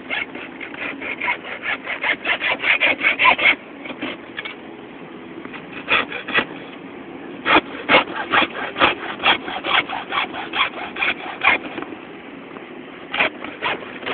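Hand saw cutting through a resin sculpture's wrist, with quick back-and-forth scraping strokes about three or four a second. The strokes come in three runs separated by short pauses.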